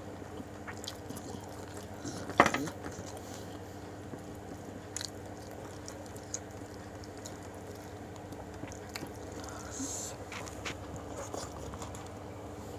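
Close-up eating sounds: fingers mixing rice on a plate and chewing, with scattered small clicks and one sharp click about two seconds in, over a steady low hum.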